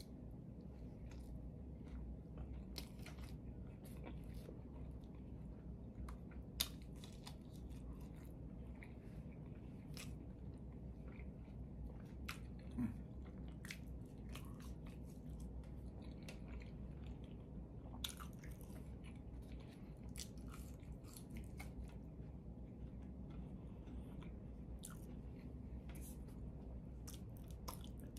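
A person chewing and biting a cheeseburger and steak fries close to the microphone, with many short, scattered mouth clicks and a sharper click about six and a half seconds in.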